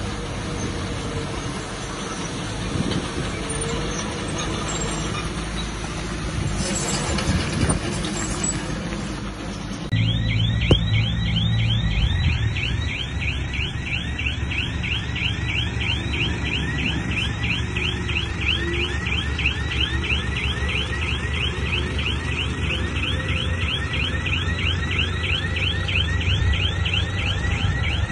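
Heavy earthmoving machinery running with a steady low engine rumble. About ten seconds in the sound cuts abruptly to a lower hum, over which a fast, regular series of short rising chirps repeats, about four a second.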